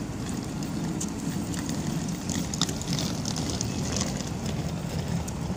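Steady low rumble of a train on the line. Scattered faint high clicks come about two to four seconds in.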